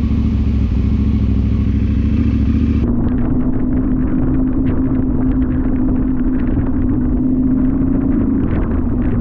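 KTM Adventure R parallel-twin motorcycle running steadily under way, heard onboard with a heavy low rumble. About three seconds in the sound changes abruptly to a steadier engine hum with frequent small clicks and clatter.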